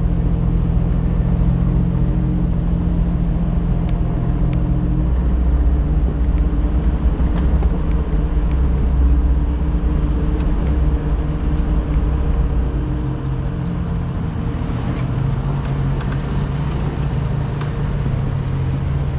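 Jeep engine running steadily as the Jeep drives slowly down a dirt trail, its note shifting a few times, with a few faint knocks.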